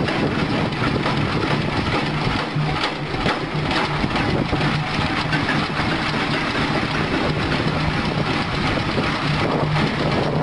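Large vintage multi-cylinder stationary engine running steadily at a low, even speed, with a constant low hum and faint exhaust pulses.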